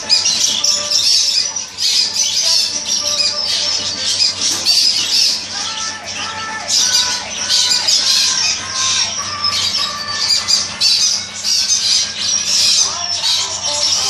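Many caged pet birds squawking and chattering at once, a constant overlapping mass of high calls with no let-up.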